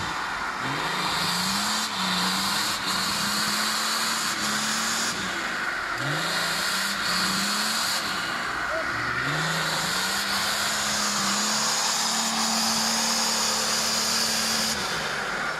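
Suzuki Samurai's swapped-in 2.5-litre turbodiesel engine revving hard under load as the truck claws up a steep slope. Its pitch climbs three times and is held high near the end.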